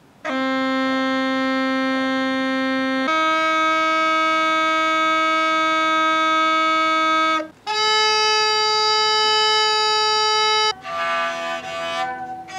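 Polish koza bagpipe sounding long, steady held notes with a bright, reedy tone, the pitch stepping up twice, with a short break before the last one. From about 11 s a bowed folk fiddle plays shorter changing notes.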